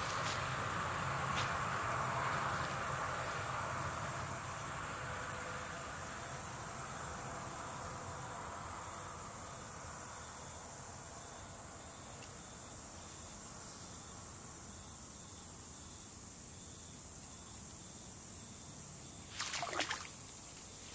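Insects chirring steadily in the waterside vegetation, a constant high-pitched hum with faint pulsing. Near the end there is a brief falling whoosh.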